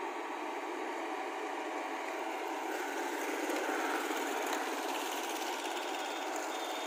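Diesel engine of a JCB tracked excavator running steadily as the machine works.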